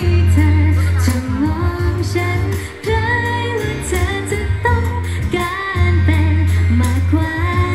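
Thai pop song performed live by a girl group: female vocals over a backing track with a heavy, steady bass line.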